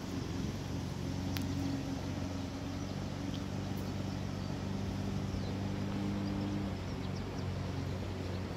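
Steady low drone of a running engine, holding an even pitch, with one sharp click about a second and a half in.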